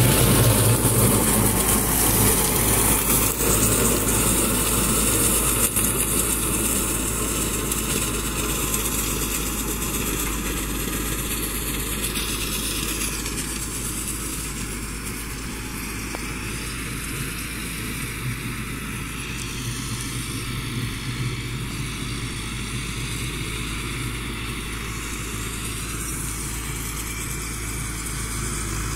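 Massey Ferguson 385 tractor's diesel engine running steadily under load as it pulls a straw cutter through rice straw. It is loud at first and fades over the first fifteen seconds or so as the tractor moves off, then holds steady.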